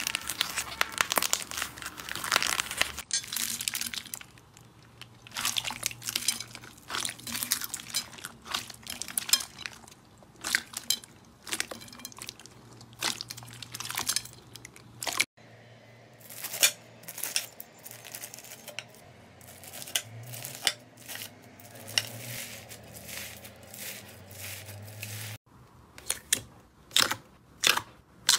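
Hands squeezing and pulling apart slime: dense crunchy crackling from a stiff, crumbly slime for the first few seconds, then a long string of wet clicks, squelches and small pops from clear bead-filled slimes, with a few sharp pops near the end.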